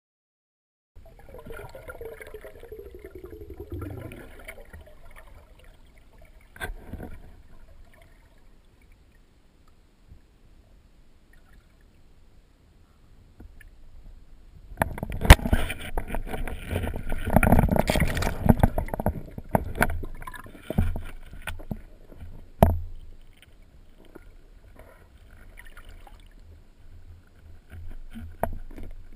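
Muffled underwater noise picked up by a camera in a waterproof housing: water rushing past and scattered knocks and clicks against the housing. About halfway through comes a louder, busier stretch of knocking and rushing lasting several seconds, followed by a few single sharp knocks.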